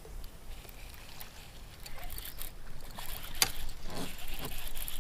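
Water splashing and trickling around a kayak, with a sharp knock about three and a half seconds in.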